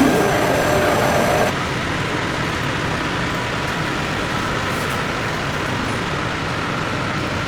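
Steady factory-floor machinery noise. It changes abruptly about a second and a half in, dropping slightly in level and losing its faint steady tones.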